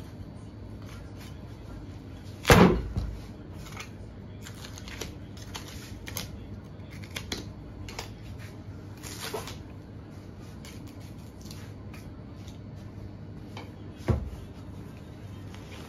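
Boning knife cutting and scraping along the bone of a beef hindquarter, in short scattered strokes, with two heavy thumps, one early and one near the end. A steady low hum runs underneath.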